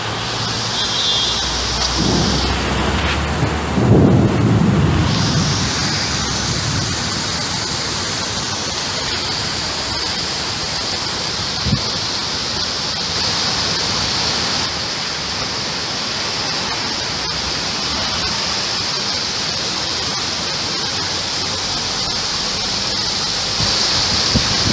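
Heavy rain falling steadily, with a roll of thunder in the first few seconds that is loudest about four seconds in.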